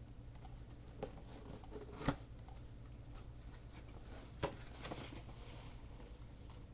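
Scattered light knocks and clicks from something being handled, over a faint rustle. The two sharpest knocks come about two seconds and four and a half seconds in.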